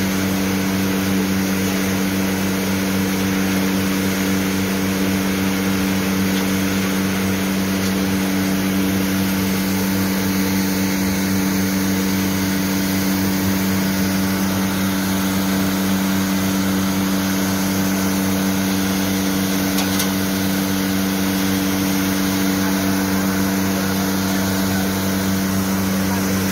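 Motor-driven processing machine with a mesh conveyor running steadily: a loud, even hum with a constant low drone over a wide hiss.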